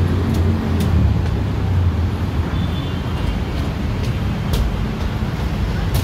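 Steady low rumble of road traffic from below, with sharp footstep clicks on a steel checker-plate walkway, at times about two a second.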